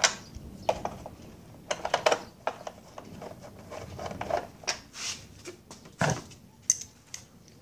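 Hand tools working bolts on an outboard motor's lower cowling plate: ratchet clicks and light metal clinks and rustling, with a heavier knock about six seconds in.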